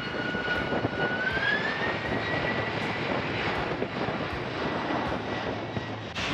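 Jet airliner engines at takeoff thrust on the runway: a whine rises in pitch over the first two seconds and then holds steady over a loud, even rush of engine noise.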